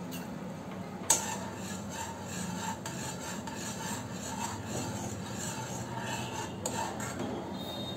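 Metal spoon stirring and scraping sugar syrup in a metal kadhai: a steady rasping rub that starts with a clink about a second in.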